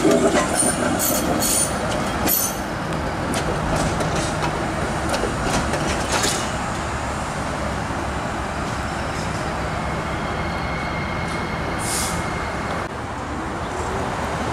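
A TTC CLRV streetcar rolling away over the loop's track switches, its wheels clicking and clacking over the rail joints for the first couple of seconds. This gives way to a steady rumble of streetcar running noise, with a short hiss near the end.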